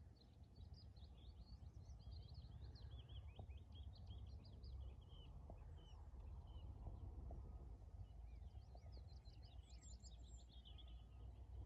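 Faint birdsong: several small birds chirping and trilling, busiest near the end, over a steady low rumble.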